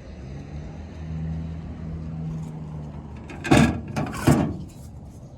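Car engine running with a steady low hum, then two short, loud sounds less than a second apart near the end.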